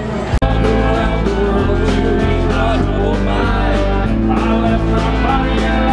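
Live country band playing loud: electric guitar over bass and drums, with a singer. The band cuts in abruptly about half a second in.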